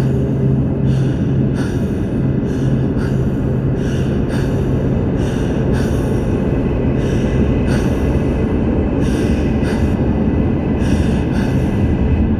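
Dark ambient drone soundscape of layered synths and sampled noise: a dense, steady low rumble with hissing bursts about once a second, sounding like a train running.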